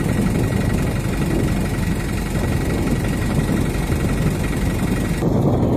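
A truck engine idling close by, running steadily with an even rapid pulse, over low rumble. It cuts off abruptly about five seconds in.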